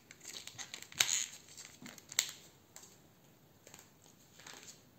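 Hands handling small plastic tubs of scented wax and paper packaging: soft rustling and crinkling with a few sharp clicks, the loudest about a second in and again just after two seconds.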